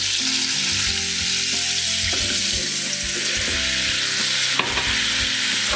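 Water poured into hot olive oil in a frying pan, the oil sizzling and spitting in a loud, steady hiss. One sharp click about three-quarters of the way through.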